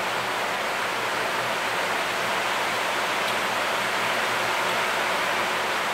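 Rain falling, a steady even hiss.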